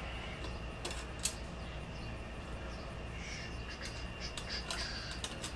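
A few light metallic clicks of a motorcycle license-plate bracket and its bolts being handled and fitted by hand, with a sharper click about a second in, over a steady low background hum.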